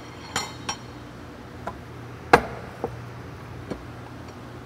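Hand tools clinking and tapping on a driveshaft U-joint in its yoke: a handful of short, sharp metallic clicks, the loudest a little past the middle, over a steady low hum.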